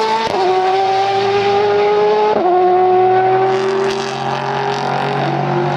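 Car engine pulling through the gears: a steady, high engine note that rises slowly and drops at an upshift about a third of a second in, then again about two and a half seconds in.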